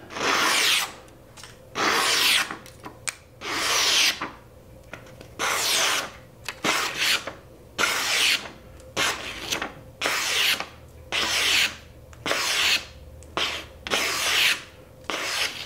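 Dalstrong Omega kiritsuke chef's knife slicing through a sheet of paper held in the air, more than a dozen short rasping strokes about a second apart. It is a paper sharpness test, and the blade shreds the paper easily: the edge is really sharp out of the box.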